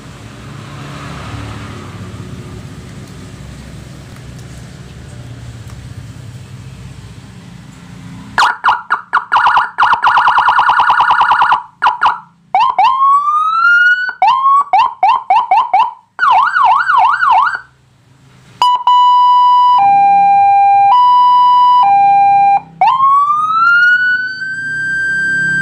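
Landun 100-watt electronic siren module played through a slim, flat 200-watt TOA horn speaker. After a low, steady rumble lasting about eight seconds, it cycles through its tones: a rapid pulsing tone, rising whoops, a fast warbling yelp, an alternating high-low two-tone, and finally a rising wail held steady at the top.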